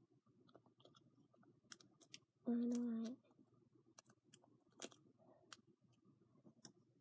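Faint scattered clicks and taps of a plastic lid and container being worked at by hand. About two and a half seconds in comes one short, steady hummed tone.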